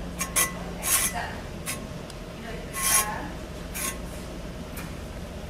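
Several short, scratchy rubs a second or so apart as the plastic tip of a squeeze-bottle underglaze applicator is pressed and drawn along the surface of a bisque pottery platter.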